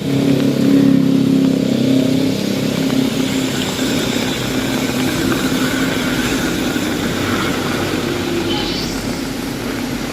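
A motor vehicle engine passes close in the first two seconds or so, its note dropping as it goes by, then steady street traffic and the hiss of rain on a wet road.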